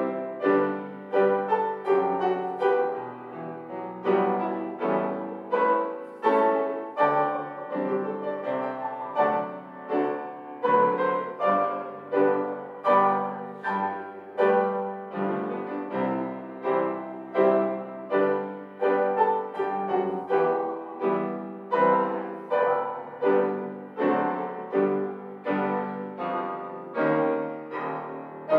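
Grand piano playing a slow hymn accompaniment: full chords struck about once a second, each ringing and fading before the next.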